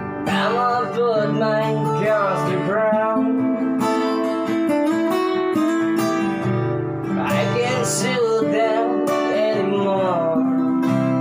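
Two acoustic guitars strummed together, with a man singing over them in two phrases: one at the start and another about seven seconds in.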